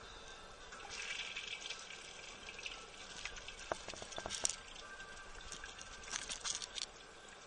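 INAX AWU-507RAML urinal flushing: water hisses out of the chrome spreader at the top and runs down the ceramic bowl, with a few light splashes and clicks. Faint music plays underneath.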